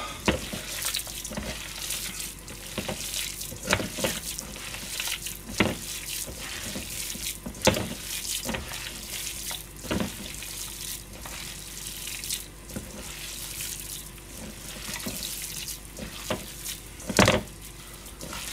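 Hands squeezing and kneading a wet hamburger mixture of ground meat, egg and panko in a stainless steel bowl: steady squishing broken by irregular wet squelches and slaps, the loudest near the end.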